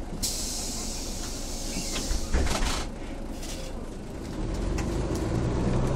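Pneumatic doors of a city bus release air with a hiss and shut with a clunk. Then the Mercedes-Benz OM447hA six-cylinder diesel pulls harder as the bus moves off through its ZF 4HP590 automatic gearbox, with a rising whine near the end.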